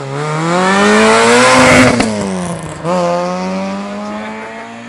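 Rally car accelerating hard past the listener. The engine note climbs as it approaches and is loudest about two seconds in, with a sharp crack. The pitch then drops as it passes, and it pulls away, its revs climbing again.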